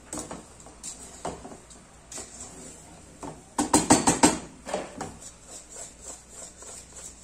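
Wooden spoon stirring cubed pumpkin and sugar in a metal pot, knocking and scraping against the pot's sides, with a quick run of louder knocks about halfway through.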